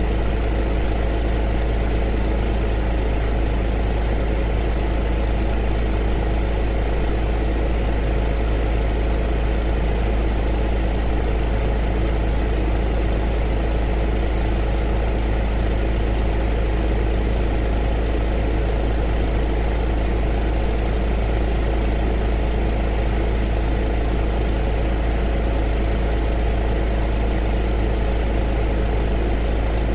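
Heater running: a steady, unchanging drone with a strong low hum and a soft hiss over it.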